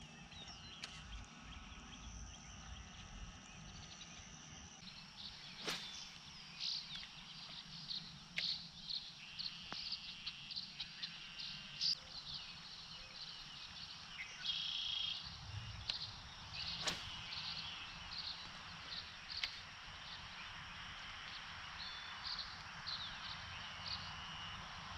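Outdoor ambience full of short, repeated bird chirps and calls, with a few sharp clicks now and then.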